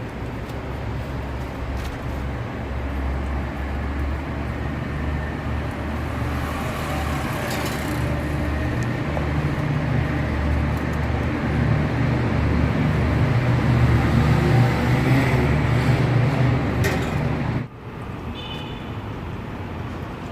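Street traffic with a heavy vehicle's engine rumbling close by. The rumble slowly grows louder, then drops away abruptly a couple of seconds before the end.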